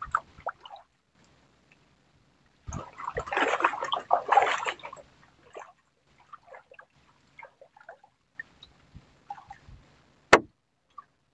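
Sea water splashing and dripping at a small outrigger boat as a handline is pulled in by hand, loudest for a few seconds early on, with scattered small wet sounds after. A single sharp knock comes near the end.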